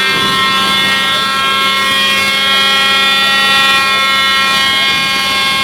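A loud, steady mechanical drone with a high whine, holding one pitch without revving up or down.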